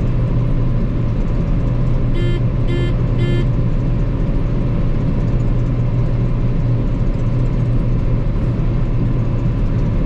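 John Deere 9560 STS combine running steadily, heard from inside the cab as a level drone with a strong low hum. About two seconds in, three short beeps sound about half a second apart.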